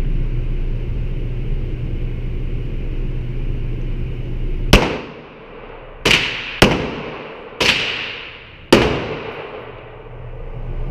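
Five handgun shots fired at an uneven pace, starting about halfway through and spread over about four seconds, each with a short echoing tail. A steady low hum runs underneath.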